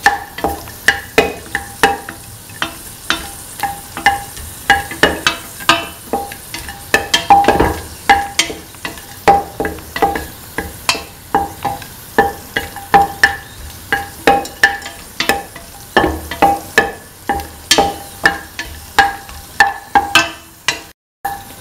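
Wooden spatula knocking and scraping against a stainless steel pan, roughly two or three strokes a second, each knock making the pan ring briefly. Under the strokes is a faint steady sizzle of cashew nuts frying in ghee. The sound cuts out for a moment near the end.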